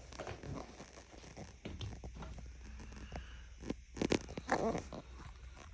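Handling noises: scattered clicks and rustling, with a few louder knocks and scrapes about four seconds in. Nothing is being set running yet.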